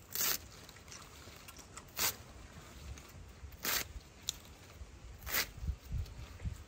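A kitchen knife slicing through crisp leafy-green stems on a woven bamboo tray: four short, crisp cuts, about one and a half to two seconds apart, with a few soft low thumps near the end.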